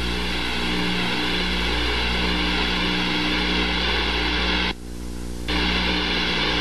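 Twin jet engines of an F/A-18C Hornet running steadily at full power with afterburner lit, as the jet goes around in a wave-off close to the carrier deck. The noise drops away for under a second about five seconds in.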